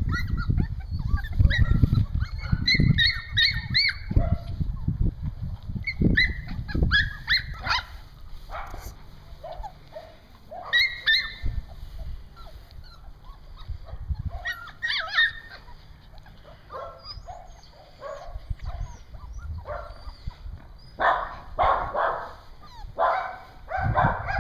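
Young Goldendoodle puppy whimpering and yipping in short, high-pitched cries that come in clusters, with a low rumble under the first several seconds.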